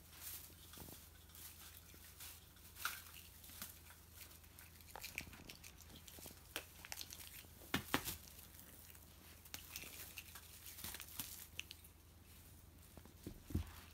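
Thin metallic party-popper streamers crinkling and rustling as a cat bats and paws at them: faint, irregular rustles and light clicks, the sharpest a pair about eight seconds in and another near the end.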